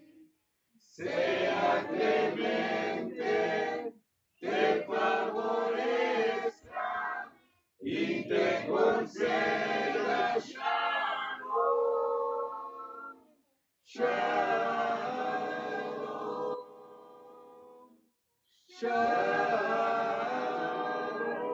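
A group of men's and women's voices singing together without instruments, in sung phrases of a few seconds each with short breaks between them.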